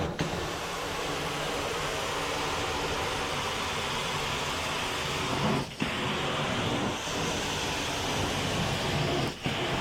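Steady rushing suction of carpet-cleaning equipment running over a low machine hum, broken off briefly about six and nine and a half seconds in.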